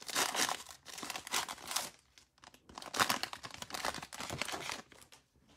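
Foil trading-card pack wrapper crinkling and tearing as it is ripped open and pulled off the cards, in two spells of rustling that stop a little before the end.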